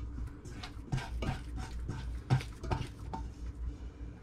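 Wet hands gathering soft bread dough in a stainless steel mixer bowl: irregular squelches and rubs, with short squeaks falling in pitch as skin and dough drag on the steel.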